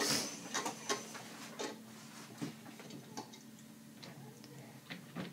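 Irregular light clicks and taps, about a dozen spread over five seconds, over a faint steady hum.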